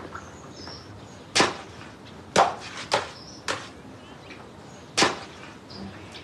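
A shovel blade scraping and striking the ground as it works a heap of damp coal dust: five sharp strokes, about a second apart, two of them close together near the middle.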